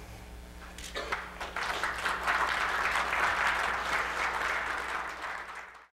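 Audience applauding, starting about a second in, swelling and then cut off abruptly near the end.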